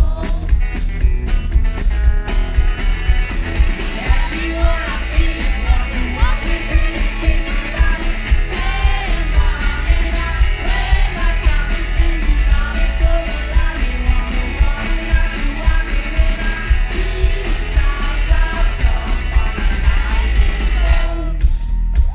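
Live rock song: a man singing over a strummed electric guitar with a band's bass and drums, loud and steady, heard from the crowd.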